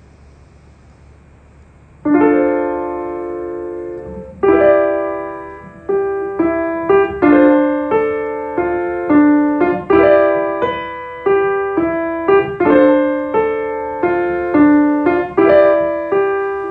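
Piano chords played in a slow repeating pattern, each struck and left to ring and fade. The first chord comes about two seconds in, after a faint low hum.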